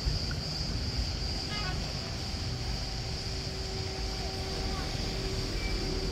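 Boat engine droning steadily at a distance, under a constant high-pitched hiss.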